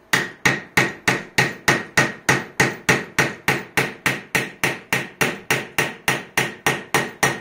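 Steady, rapid hammer blows, about three a second, of a 3D-printed resin hammer driving a large steel nail into a wooden block. Each strike is a sharp knock with a short metallic ring.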